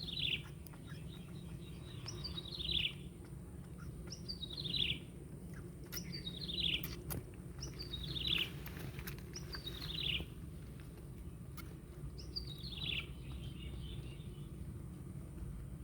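A bird calling: a high call that slides downward, repeated seven times about every two seconds, with a longer pause before the last one. Steady low background noise underneath.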